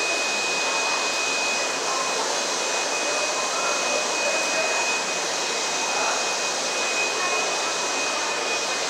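A steady whooshing machine noise with a thin high-pitched whine over it; the whine cuts off near the end.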